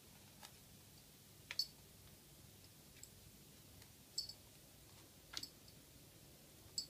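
A few quiet, sharp clicks of a cat's claws on a laminate floor as it walks and paws, about four louder ticks a second or so apart, some in quick pairs, over near silence.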